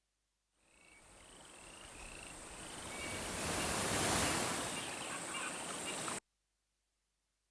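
A synthesized sound effect from the Krotos Studio Genesys pack: a noisy wash that swells over about three seconds, with a thin, steady high whistle and a run of short chirps in its first half. It then cuts off abruptly.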